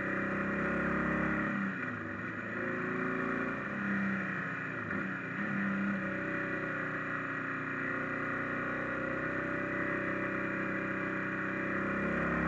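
Motorcycle engine running under way, its pitch dropping and climbing again twice as the throttle is eased and reopened through bends, over a steady rush of wind and road noise.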